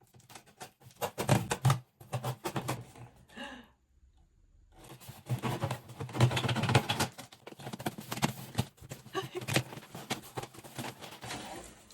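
A shipping package being opened by hand: rapid, irregular scraping, clicking and tearing of cardboard, tape and plastic, with a brief silent gap about four seconds in.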